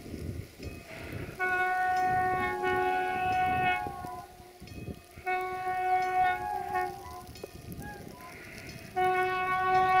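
Horn of an EMD-built 'Jimmy' diesel locomotive sounding three long blasts, each a chord of several steady tones. The first lasts about two and a half seconds, the second under two, and the third starts near the end and keeps going.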